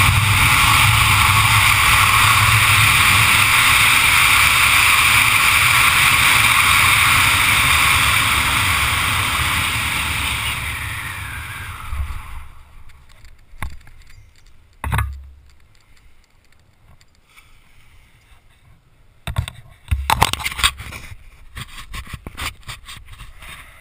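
Wind rushing steadily over the microphone of a helmet camera during a parachute descent, dying away about halfway through as the jumper touches down. After that it is much quieter, with a few short thumps and rustles.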